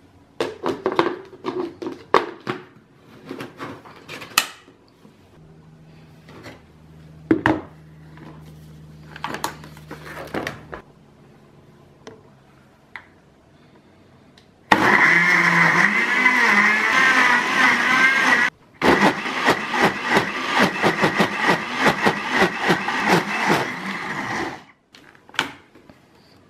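Electric countertop blender chopping cut raw red chillies with sugar, vinegar and water into chilli sauce: the motor runs for about four seconds, stops for a moment, then runs about six seconds more with chunks rattling against the jug. Before it starts there are scattered clicks and knocks of the jug and lid being handled.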